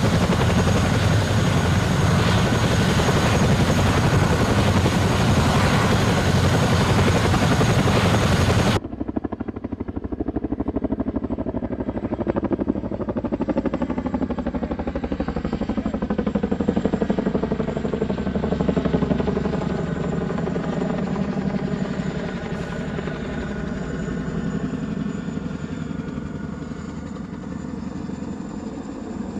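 AH-64D Apache attack helicopter's twin turboshaft engines and rotor running: a loud, dense rush with a steady high whine. About nine seconds in it cuts abruptly to a quieter, steady multi-toned machine whine whose pitches waver slowly.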